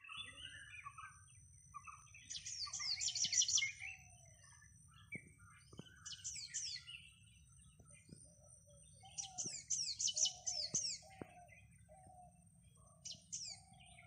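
Birds singing in the open: four bursts of rapid, falling high chirps, with a lower call repeated many times in the second half. A steady high-pitched whine and a faint low hum sit underneath.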